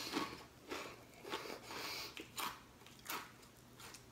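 A mouthful of crispy roasted wasabi soybeans being chewed close to the microphone, with irregular crunches roughly every half second.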